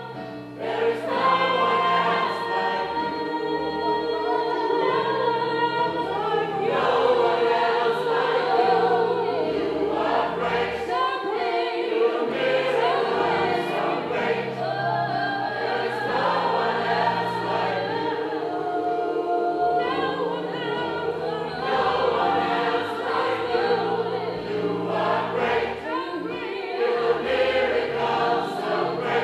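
Gospel choir singing in several-part harmony.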